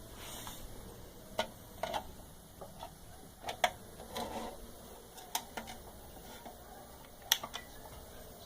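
Scattered sharp clicks, about five over eight seconds, with a brief rustle about four seconds in: switches and buttons being pressed by hand.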